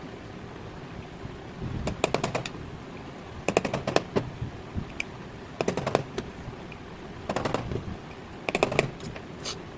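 Short bursts of rapid clicking and rattling, about five of them roughly a second and a half apart, as small hard parts are handled and worked by hand.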